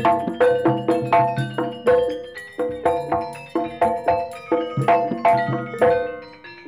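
Jaranan gamelan music played live: ringing strikes on tuned metal percussion, about three or four a second, over low drum beats. The playing breaks off briefly near the end.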